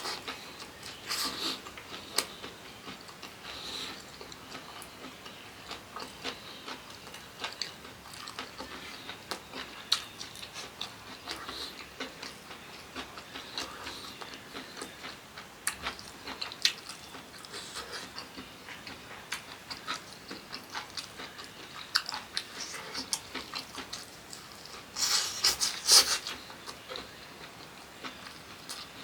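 A person chewing food close to the microphone, with many small wet mouth clicks, and a louder noisy burst of breath about 25 seconds in.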